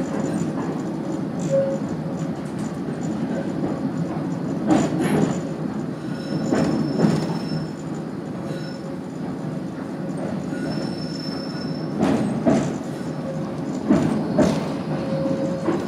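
Tram running on its rails with a steady rumble, broken by pairs of knocks from the wheels on the track four times, and twice by a brief, thin, high wheel squeal.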